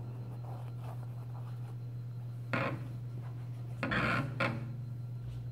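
Handling noise: rubbing and scraping as a rubber RC crawler tire and things around it are moved, in two short bursts, about two and a half seconds in and a longer one about four seconds in. A steady low hum runs underneath.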